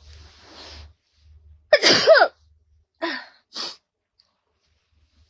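A woman's allergy sneeze, with her nose and eyes itching: a drawn-in breath, then one loud voiced sneeze about two seconds in, followed by two short breathy sounds.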